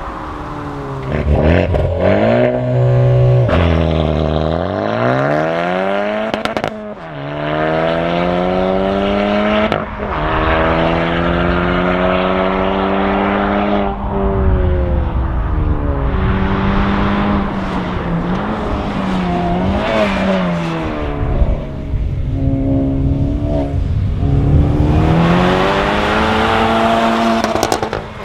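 Honda Civic Type R FK2's turbocharged 2.0-litre four-cylinder through a Martelius aftermarket exhaust, accelerating repeatedly: the pitch climbs and falls back at each gear change, with stretches of steady cruising between and another pull near the end.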